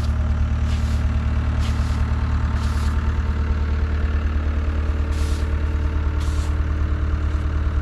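A motor idling steadily with a low, even hum.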